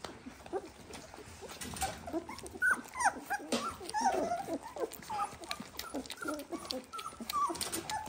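A litter of 18-day-old Dalmatian puppies squeaking and whimpering: many short, high little cries overlapping one another, busiest from about two seconds in, with scattered small clicks among them.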